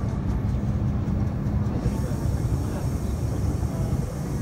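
Taipei Metro C301 train running along the line: a steady low rumble with a constant hum.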